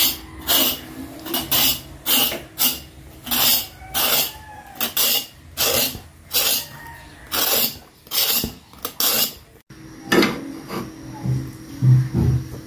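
A kitchen knife scraping the skin off a long green vegetable in quick repeated strokes, about two a second. The strokes stop abruptly about ten seconds in, and a few low knocks follow near the end.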